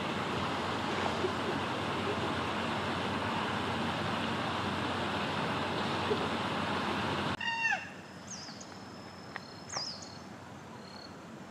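A steady rushing noise cuts off suddenly about seven seconds in. After it come a few short, high, falling bird calls.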